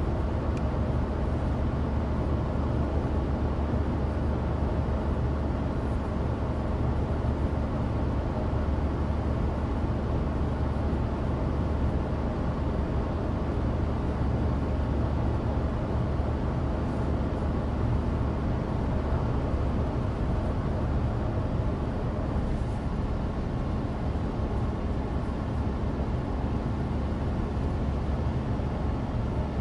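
Cabin noise of a 2016 Suzuki Alto Turbo RS (HA36S) driving steadily: its 660 cc turbocharged three-cylinder engine and studless winter tyres on dry road make a steady low drone with no sharp events.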